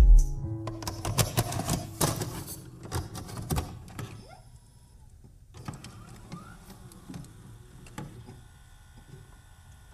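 The last notes of the music die away, followed by a run of irregular sharp clicks and taps that grow sparser and fade out about four seconds in. Only a few faint clicks follow.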